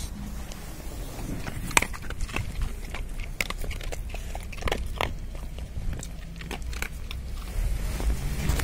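Dogs crunching dry kibble picked up off the ground: an irregular scatter of short, sharp crunches and clicks over a low steady rumble.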